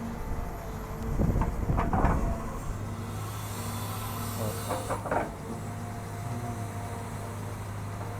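Cat 320 GC excavator's diesel engine running with a steady hum. A few clattering knocks come about a second in and again near five seconds.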